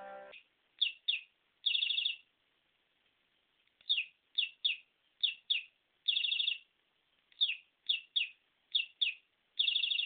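Repeated short, high bird chirps, some single and some in quick pairs, each dropping in pitch. Three longer trilled chirps come about two, six and ten seconds in.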